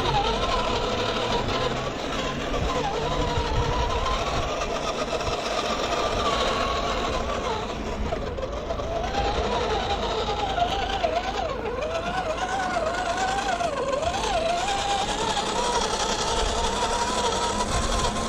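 Electric motor and gearbox whine of an RGT Crusher 1/10 RC crawler, its pitch wandering up and down with throttle and load.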